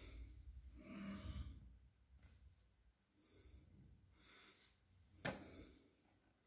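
Faint breathing of a person close to the microphone, in soft swells about every second or so, with light hand-handling noise and one sharp click about five seconds in.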